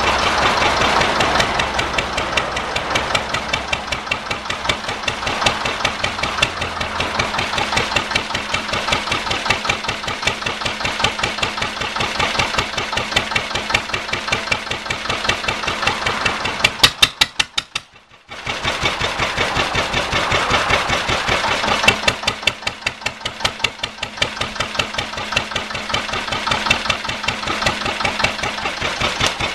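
Bamfords Z2 single-cylinder direct-injection diesel stationary engine running steadily, each firing stroke a sharp, regular knock. The sound cuts out for under a second a little after two-thirds of the way through, then the running picks up again.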